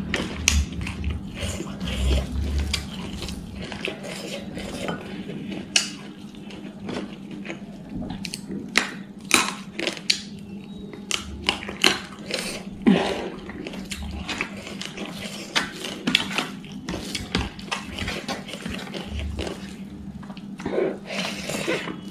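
Eating by hand from a steel plate of curried snails and rice: snail shells click and scrape against the plate and each other as the fingers gather food, with chewing in between. The clicks come irregularly, many of them sharp and close.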